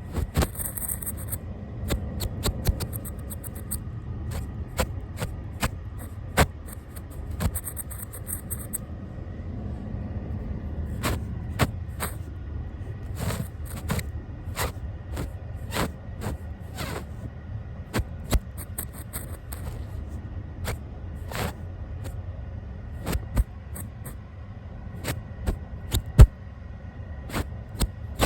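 A brush swept over the camera and its microphone: a low rumbling scratch broken by frequent sharp clicks, with two short high hissy spells, one near the start and one about eight seconds in.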